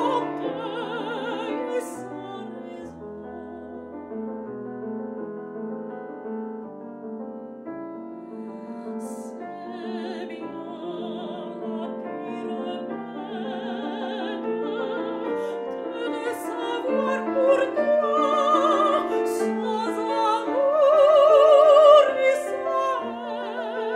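Lyric soprano singing classical art song with a wide vibrato, accompanied on a Steinway grand piano. The voice is soft for the first several seconds, then builds through rising phrases to its loudest held notes about 21 seconds in.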